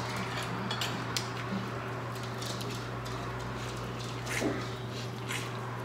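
Scattered light clicks and clinks of a fork and crab shells against a metal pan of seafood boil, over a steady low hum.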